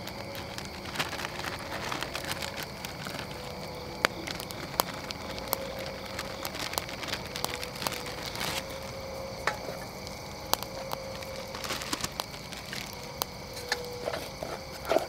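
Wood fire crackling in a small camp stove, with sharp pops scattered irregularly throughout.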